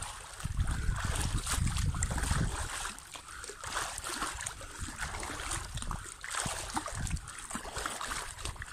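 Pool water splashing and sloshing as a person hops and sweeps both arms through it from side to side, coming in uneven surges about once a second. A low rumble sits under it for the first couple of seconds.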